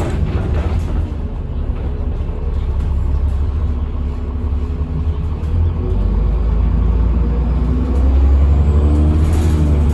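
Cummins ISBe diesel engine of a Transbus Trident bus running under way, a deep drone that swells about eight seconds in as a whining tone rises in pitch.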